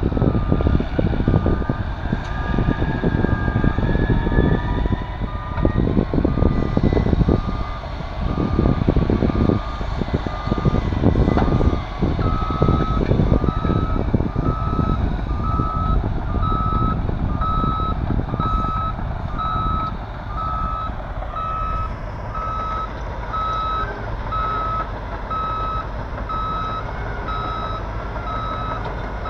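Heavy diesel engines of a scraper and a bulldozer working under load while moving earth, with a rising whine near the start. A reversing alarm beeps steadily from about halfway, and the engine noise eases in the last third.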